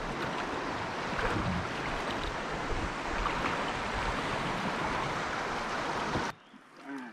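Fast river water rushing through a riffle around a wooden drift boat, a steady rushing hiss with gusts of wind buffeting the microphone. About six seconds in it cuts off suddenly to a much quieter background.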